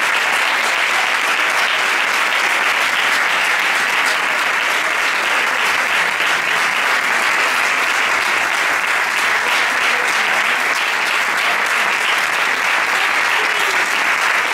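Audience applauding: dense, steady clapping of many hands that holds without a break.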